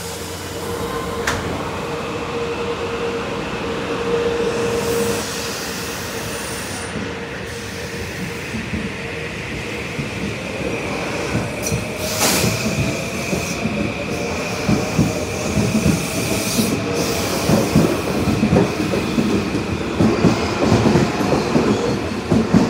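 Metro-North M8 electric multiple-unit train pulling out of the station. Its electric drive whines, rising slowly in pitch as it accelerates, and wheel clatter and knocks grow louder as the cars pass close by.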